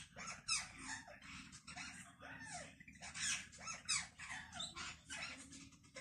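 Parrot chattering: a rapid string of short squeaks and chirps, several a second, some rising and falling in pitch.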